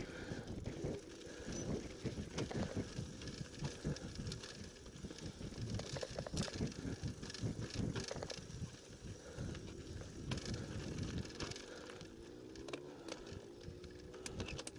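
Mountain bike rolling over a rough, stony dirt trail: a dense, irregular rattle of tyres on loose rock and knocks from the frame and components. It eases off somewhat near the end.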